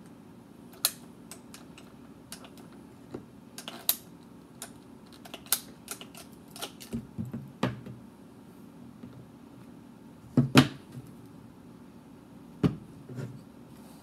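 Hand PVC cutter squeezed through a clear plastic tube: an irregular run of sharp clicks and snaps, with two louder knocks about two-thirds and nine-tenths of the way through.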